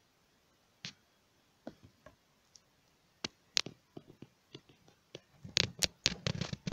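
Beyblade Burst top (Kreis Satan 2 Glaive Loop) spinning in a plastic stadium, giving faint scattered clicks and taps. The clicks come thick and fast near the end as the top tilts and wobbles on the stadium floor.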